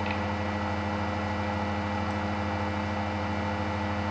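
Steady electrical hum with a constant hiss underneath, unchanging throughout.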